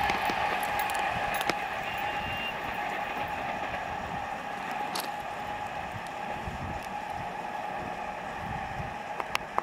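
MEMU electric train running at a distance: a steady rumble with a faint whine, slowly fading over the first few seconds. A few sharp clicks stand out, one about a second and a half in, one at five seconds and one near the end.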